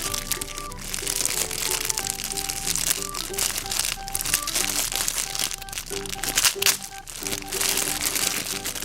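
Background music with a light melody, under a continual crinkling and crackling of surprise-egg wrapping being handled and torn open.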